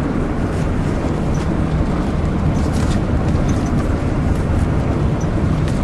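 Steady low rumble of a bus running on the road, heard from inside the cabin, with faint small rattles.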